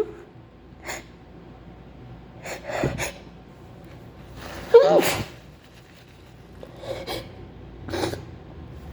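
A woman sneezing again and again in a fit: several short sneezes and sharp breaths, with the loudest, fullest sneeze about halfway through after a rising intake of breath.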